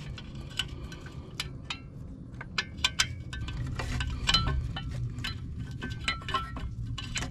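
Irregular light metallic clinks, some ringing briefly, from bolts being started by hand in the flange of a new catalytic converter at the cylinder head. A steady low hum runs underneath.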